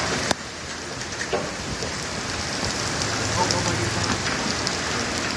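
Steady rain hiss with scattered drops ticking, and one sharp click about a third of a second in.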